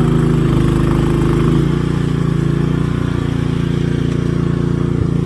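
A motor engine running steadily at a constant speed, easing off slightly a little under two seconds in.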